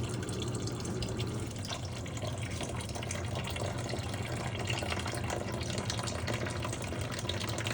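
Water running and splashing as it drains out of the opened plumbing of a tankless water heater, with a steady low hum underneath.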